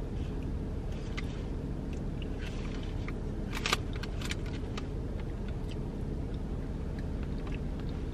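Plastic spoon scraping and clicking in a foam cup as peach cobbler and ice cream are scooped up, then soft eating sounds, over a steady low hum in the car's cabin.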